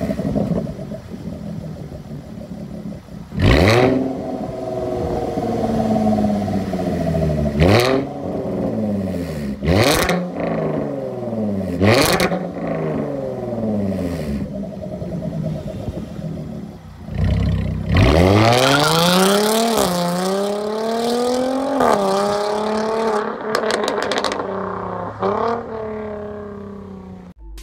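Jaguar F-Type S 3.0 supercharged V6 through an aftermarket valvetronic exhaust with catless downpipe, revved in four quick blips that each drop back to idle. It then accelerates away hard, its note climbing through several upshifts and fading into the distance.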